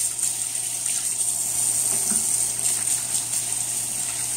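Kitchen faucet running steadily into a stainless steel sink, with hands being washed under the stream.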